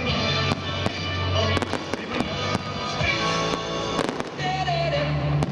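Aerial fireworks going off in a string of irregular sharp bangs and crackles, with a quick cluster about four seconds in, over loud music playing.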